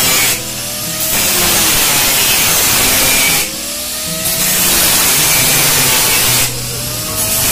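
Angle grinder with a thin cut-off disc cutting a circle out of stainless steel sheet, giving a loud hissing grind. Three times it eases for about half a second as the disc comes off the cut, and a rising whine shows through as the unloaded motor speeds up.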